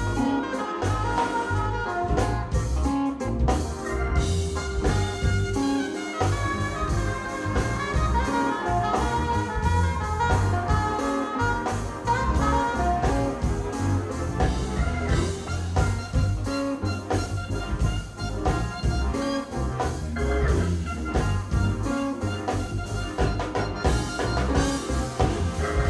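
Live funk-jazz band playing an improvised groove: a heavy electric bass line and a steady drumbeat, with saxophone and keyboard lines over the top.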